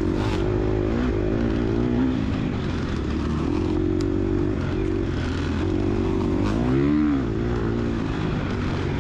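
2022 Gas Gas EX250F dirt bike's 250cc four-stroke single running under load, its revs wavering up and down as the throttle is worked, with a quick rev up and back down about seven seconds in.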